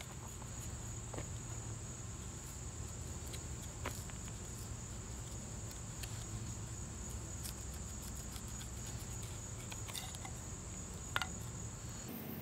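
Steady high-pitched drone of insects such as crickets, over a low rumble, with a few faint clicks and scrapes of a knife cutting a divot and notch into a thin wooden paint stir stick. The drone drops out abruptly near the end.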